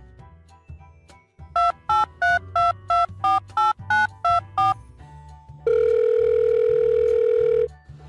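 Touch-tone telephone keypad beeps dialling a number: ten short two-tone beeps at about three a second, followed by a steady phone tone held for about two seconds. Background music plays underneath.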